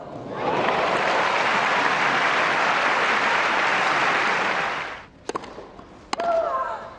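Tennis crowd applauding for about four to five seconds, then dying away, followed by two sharp knocks.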